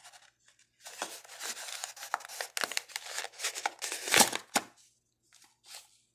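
Small cardboard box being opened and its paper packaging crinkling and rustling as a toy is drawn out, with a sharp snap about four seconds in.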